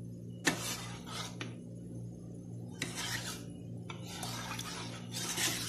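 Metal spoon stirring cornstarch mixed into liquid in a ceramic bowl: a clink against the bowl about half a second in, then several short scraping strokes of the spoon on the bowl.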